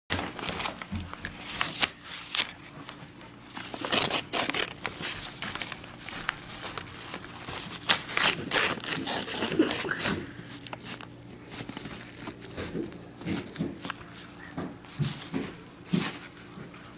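A dog chewing and tearing paper: irregular crinkling and ripping noises that come and go.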